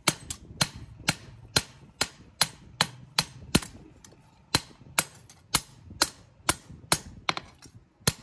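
Hand hammer striking a steel knife blade, forged from an aircraft bolt, on a small round anvil: sharp metallic blows about two a second, with a short pause a little before the middle and lighter taps near the end. The blade is being hammered flat on both faces to finish it.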